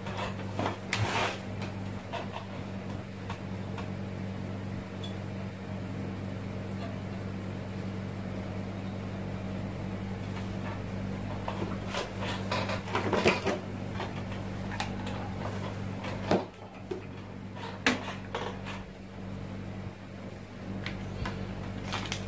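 A steady low electrical hum, with a few scattered knocks and clatters of tools and parts being handled at a workbench.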